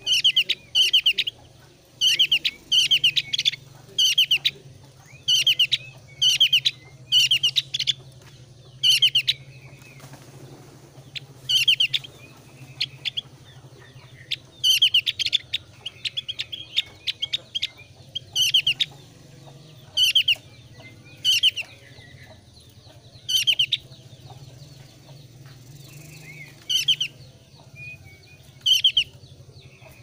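Javan grey-throated white-eye (opior Jawa) in breeding condition singing: loud, short bursts of fast high twittering notes, repeated every one to two seconds at irregular spacing.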